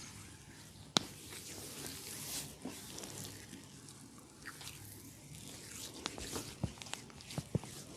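Body massage sounds: soft rubbing over skin with a single sharp click about a second in and a quick run of small clicks and pops in the last two seconds.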